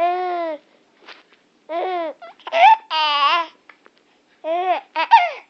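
A seven-month-old baby laughing in six short, high-pitched vocal bursts with pauses between them.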